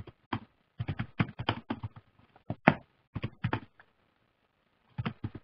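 Typing on a computer keyboard: irregular runs of quick key clicks, a pause of about a second, then a few more keystrokes near the end.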